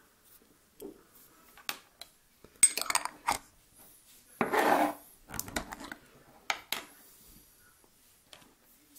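Small hard objects, a glass jar, plastic syringes and a model locomotive, being picked up and set down on a wooden tabletop: a series of separate clicks, clinks and taps, with a longer scrape about halfway through.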